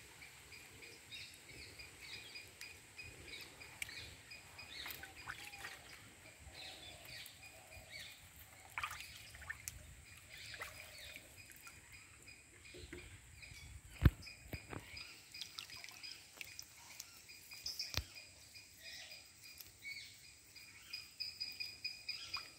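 Faint dripping and trickling of river water as a man wading waist-deep handles a fishing line, over a steady pulsing chirr of insects. A single sharp click stands out a little past halfway.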